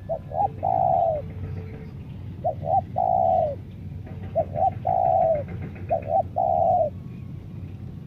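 Spotted dove cooing: four phrases about two seconds apart, each two short notes followed by a longer drawn-out coo.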